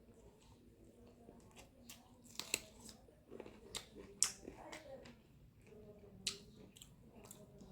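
A person eating chicken and rice, with scattered sharp, irregular mouth clicks and smacks and wet chewing noises.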